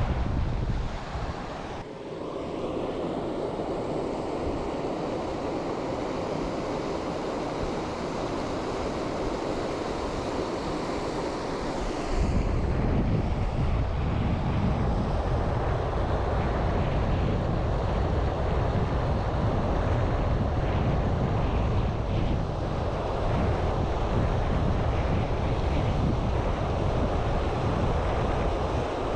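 Wind buffeting the microphone over a steady rushing haze; the low buffeting grows much stronger about twelve seconds in and stays that way.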